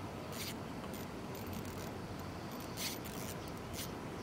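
Fishing reel working under the load of a large fish on the line: a few short, hissing strokes, the strongest about three seconds in, over a steady hiss.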